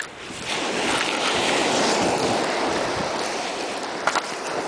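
Sea waves washing on a shingle beach, a steady rushing hiss that swells about half a second in. Two short clicks near the end.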